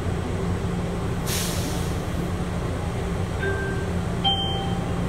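Airport people-mover train standing at the station: a steady low hum, a brief hiss about a second in, and two short electronic tones near the end, the door chime ahead of the doors closing.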